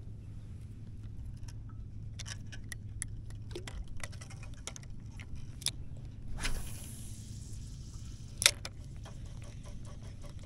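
Scattered light clicks and taps of fishing gear being handled on a paddle board, with a brief rushing noise a little past halfway and one sharp click about eight and a half seconds in, the loudest sound, over a low steady hum.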